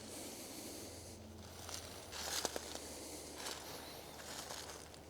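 Footsteps of a person walking through leaf litter and brush, uneven, with a louder rustle and a couple of sharp snaps about two and a half seconds in.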